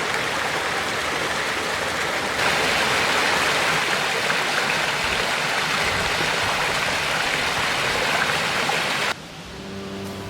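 Steady rushing of running water, louder and brighter after about two seconds, then dropping suddenly to a quieter hiss near the end.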